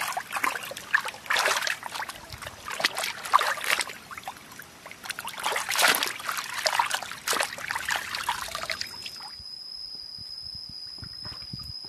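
Water splashing and trickling irregularly, stopping abruptly about nine seconds in, leaving only a steady high-pitched whine.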